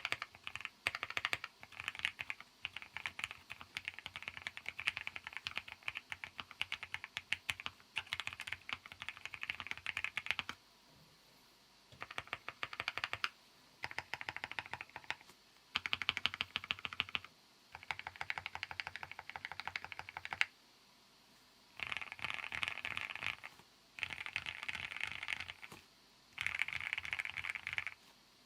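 Typing on a Sea75 custom mechanical keyboard: rapid keystroke clicks, continuous for about ten seconds, then in short bursts with brief pauses between them.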